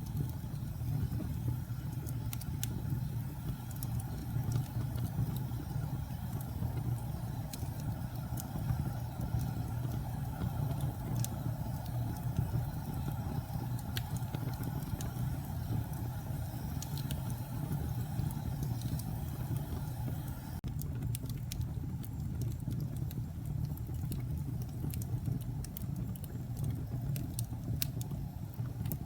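Wood fire burning in a fireplace: a steady low rumble of flames with scattered sharp crackles and pops, coming thicker near the end.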